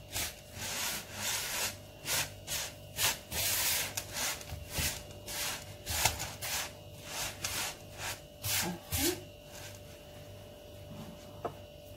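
A hand rubbing and tossing moistened semolina against a wooden bowl, a dry gritty rustle in repeated strokes about two a second. The strokes die away after about nine seconds.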